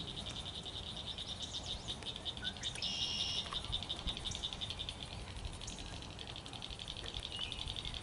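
A continuous high, fast-pulsing animal trill, with a few faint bird chirps and a short, louder call about three seconds in.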